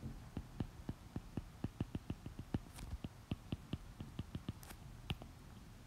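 Stylus tip tapping and clicking on a tablet's glass screen during handwriting: a quick, irregular run of light taps, several a second, with a few faint scratches of the tip sliding.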